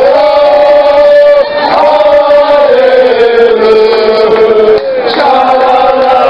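French football supporters, men's voices close to the microphone, chanting loudly in long drawn-out sung phrases; the pitch slides down through the middle phrase.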